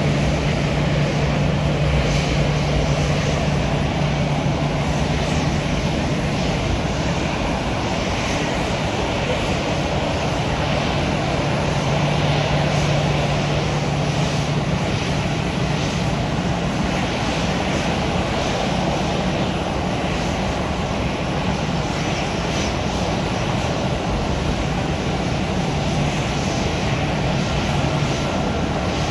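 Airliner's engines running with a steady rushing noise and a low steady hum, typical of a departing flight.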